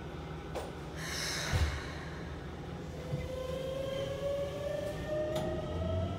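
Keikyu 600 series train's Mitsubishi GTO-VVVF traction inverter whining as the train starts off, several tones rising steadily in pitch from about three seconds in. A short hiss about a second in, over the steady low rumble of the car.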